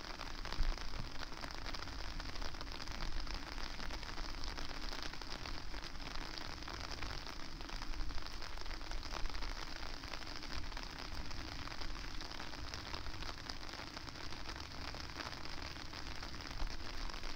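Steady rain falling, with many small drop ticks on a nearby surface, over a low rumble of wind on the microphone.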